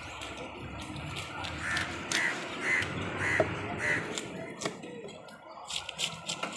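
A crow cawing five times in a quick even series, about two caws a second. A few sharp knocks of the cleaver on the wooden chopping block follow.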